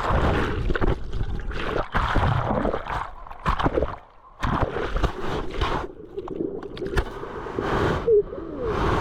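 Sea water sloshing and gurgling in irregular surges as surf washes around the microphone, with a brief dropout about four seconds in.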